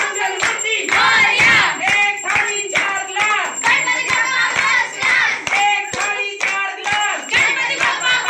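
A crowd of devotees singing and chanting a Ganesh devotional song together in loud overlapping voices, with hand-clapping in time and a small bell ringing.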